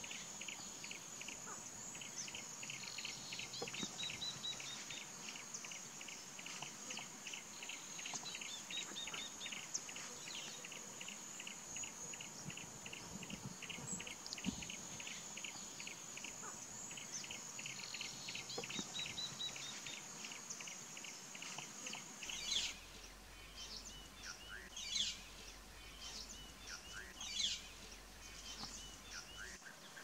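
Steady high insect drone under a rapid, even series of short chirps, about four a second, with a brief rising-falling phrase every few seconds. About 22 seconds in it cuts to louder, harsh downslurred calls of white-headed buffalo-weavers, three of them standing out.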